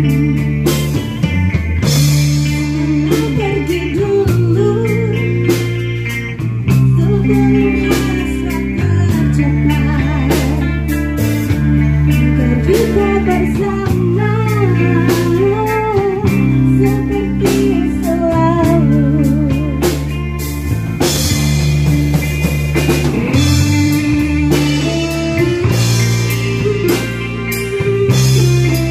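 Live band playing through amplifiers: electric guitars, bass guitar and drum kit over a steady beat, with a woman singing into a microphone.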